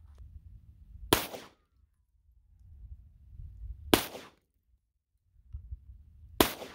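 Three single pistol shots from a Glock 17 Gen 1 reproduction (9mm), fired slowly, about two and a half to three seconds apart, each with a short ringing tail.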